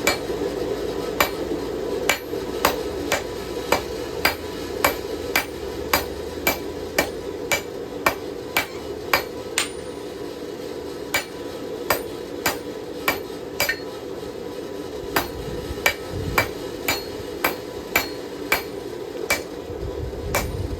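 Hand hammer striking hot steel on an anvil while forging a knife blade: sharp, ringing blows at about two a second, with two short pauses. A steady low hum runs underneath.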